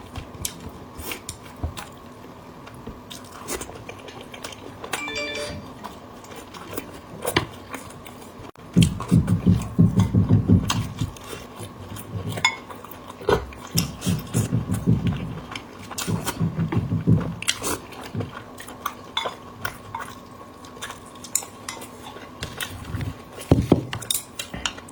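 Close-miked chewing and biting of braised pork knuckle meat, in several long bursts, with scattered clicks of chopsticks or utensils against a dish.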